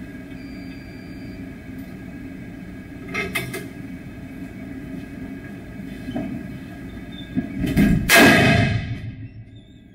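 A test shot fired at a Kevlar PASGT helmet in a V50 ballistic limit test: one loud report near the end that rings on for about a second. A couple of smaller knocks come before it, over a steady hum.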